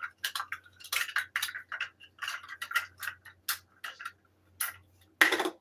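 Red nested measuring cups clicking and clacking against each other as they are pulled apart and sorted, in quick irregular ticks, with one louder clack near the end.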